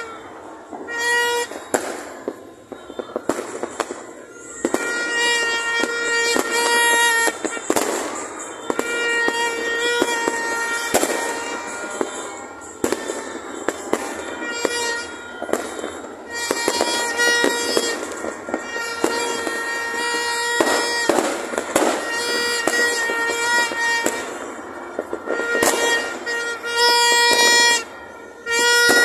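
Fireworks and firecrackers going off across a city, a dense run of pops and bangs. A held, horn-like tone sounds on and off over them every few seconds.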